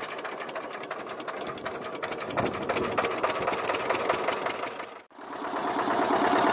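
Fishing boat's small hand-cranked inboard engine running just after starting, with a steady rapid beat. It dips out briefly about five seconds in and comes back louder.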